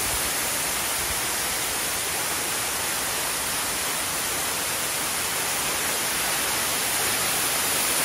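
Waterfall close by, water falling down a rock face and splashing onto rocks in a steady, unbroken rush.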